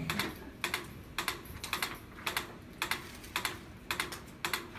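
Steady ticking: sharp clicks at an even pace of about two a second.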